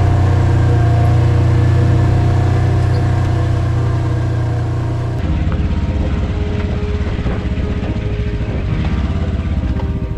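Polaris RZR side-by-side engine running with a steady drone, heard from inside the cab. About five seconds in the sound changes abruptly to a rougher rumble of the vehicle rolling slowly over a rocky dirt trail, with its tyres crunching on loose stones over the engine.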